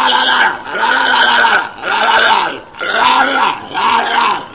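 Walrus calling over and over, five calls about a second apart, each rising then falling in pitch.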